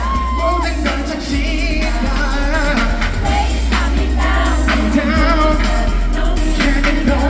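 Korean pop song playing: a sung melody over a steady beat and heavy bass.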